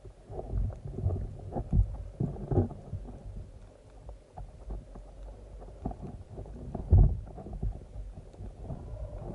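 Muffled underwater water noise with irregular low thumps and knocks as a speargun carrying the camera is handled and its shooting line pulled in just below the surface; the biggest thump comes about seven seconds in.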